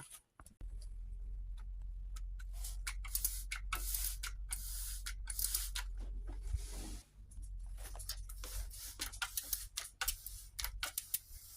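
Small clicks, taps and rustles from hands working with food wrapping and packaging on a kitchen counter, over a low steady hum that drops out for a moment around seven seconds.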